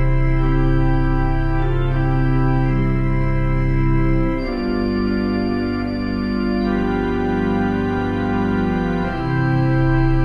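Mighty Wurlitzer theatre pipe organ, a four-manual, 24-rank instrument, playing slow held chords over a steady low bass note. The chord changes about four seconds in and again near the end.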